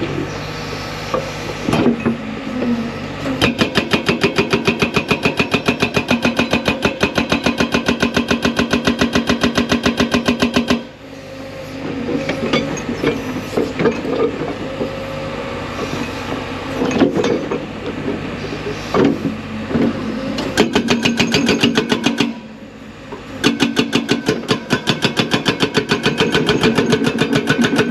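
Hydraulic breaker on a large excavator hammering rock in rapid, evenly spaced blows, in a long run and then two shorter runs. The excavator's diesel engine runs between them, with scattered knocks.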